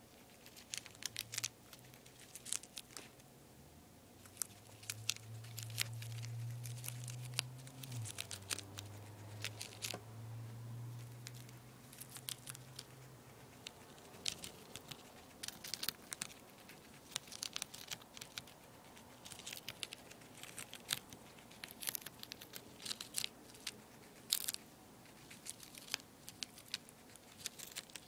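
A two-month-old guinea pig biting and chewing a leaf of lettuce close up: quick, irregular crisp crunches and tearing of the leaf. A low steady hum sounds for several seconds, from about four seconds in until about thirteen seconds in.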